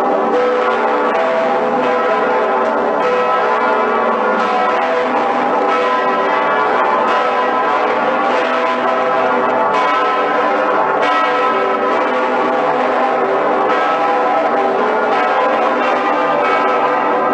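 Two of Cologne Cathedral's great swinging bells, the St. Peter's Bell (Decke Pitter) and Pretiosa, ringing together: loud, with a fresh clapper strike every second or few and the deep tones of both bells humming on between strikes.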